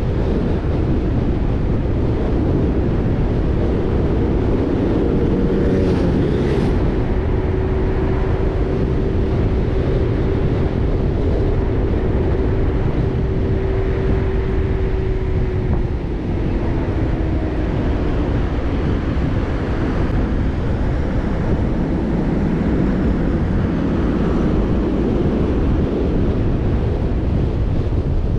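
Jeep Rubicon on the move, with wind rushing over the microphone and a steady road rumble. The engine hum holds one pitch for a while, then drops a little past halfway as the Jeep eases off.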